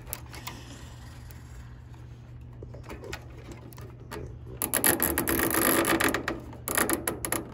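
A plastic zip tie being pulled tight around a headlight bracket. Its teeth ratchet through the lock in fast runs of clicks, in two pulls from about halfway through. Before that there are only a few scattered clicks as the tie is threaded through.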